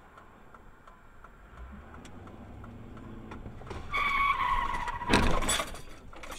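Car tyres squealing under hard braking for about a second, with the pitch sagging slightly, ending in a loud crunch as the car collides with a minivan pulling across its path.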